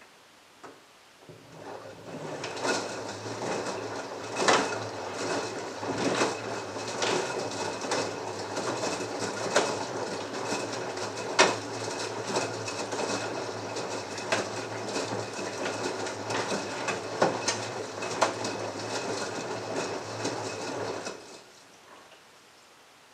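LG front-loading washing machine drum tumbling a wet mixed load during the heating stage of the wash: a steady motor hum with the clothes sloshing and dropping, and sharp clacks every second or so. It starts about a second in and stops shortly before the end.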